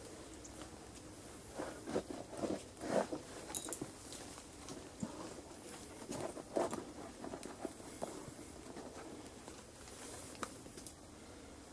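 Faint, irregular rustling and scraping of twigs, bark and clothing as someone shifts about in a tree; the chainsaw is not running.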